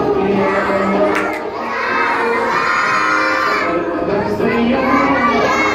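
A group of young children shouting and chanting together, many voices at once.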